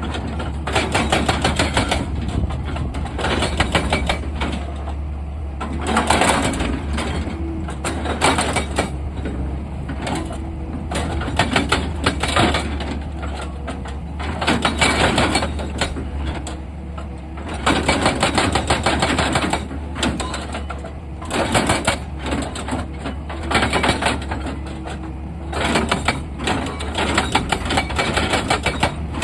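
Excavator's diesel engine running with a steady low drone, overlaid by repeated bursts of rapid clattering strokes.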